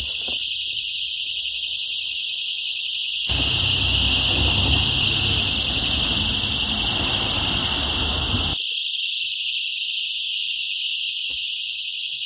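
A dozen or more pull-pin personal alarms shrieking together in one continuous, piercing high-pitched wail, set off by the car boot opening and pulling their pins. From about three seconds in to about eight and a half seconds a rush of street noise is heard under it.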